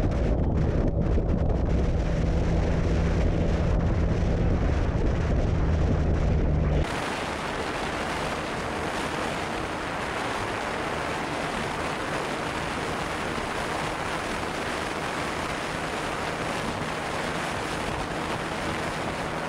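Wind rushing past a moving motorcycle, with the steady drone of the Benelli TNT 300's parallel-twin engine underneath. About seven seconds in the sound cuts abruptly to a quieter, even wind rush with the engine barely heard.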